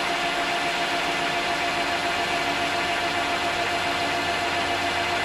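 Metal lathe running at a steady speed with a constant whine over an even hiss, taking a last small cut to bring a steam-engine piston to size.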